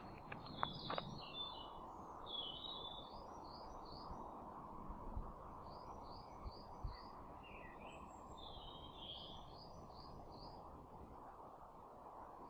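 Woodland birds singing: a few short phrases of quick high chirping notes, repeated several times, over a faint steady ambient hiss. A few light knocks in the first second.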